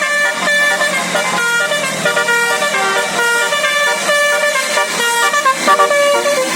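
Telolet basuri musical bus horn playing a quick melody of short, loud horn notes that change pitch several times a second.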